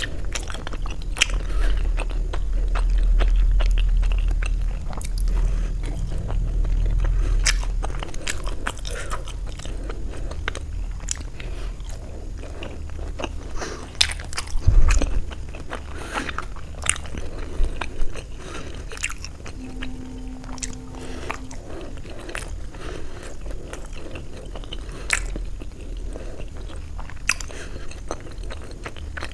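Close-miked chewing and biting of soft steamed paneer momos, with many sharp wet mouth clicks and smacks, and a louder low thump about halfway through.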